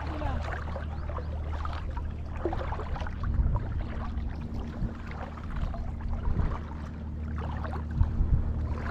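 A boat engine drones steadily at an even pitch, with water sounds and a few low thumps.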